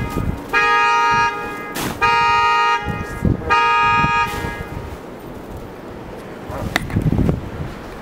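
A car horn honks three times, each steady blast under a second long and about a second and a half apart. Brief scrapes of a plastic snow shovel on snow and pavement come through between and after the honks.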